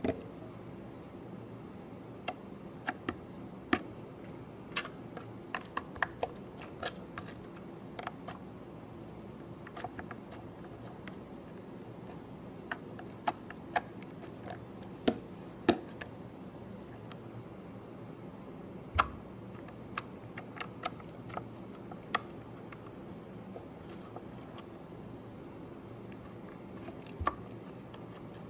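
Slime being handled, giving irregular sharp clicks and pops over a steady low hum.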